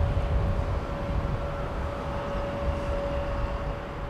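Jet engines of a Boeing 787-8 airliner rumbling as it climbs away after takeoff, slowly fading. A steady hum sits over the rumble.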